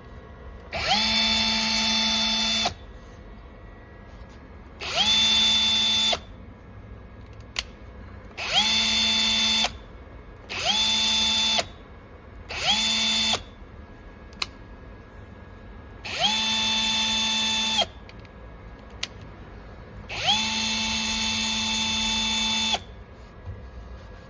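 Panasonic EZ79A3 cordless hammer drill-driver run unloaded in seven short bursts. Each burst spins up quickly to a steady whine and stops, with a few single clicks in the pauses between runs.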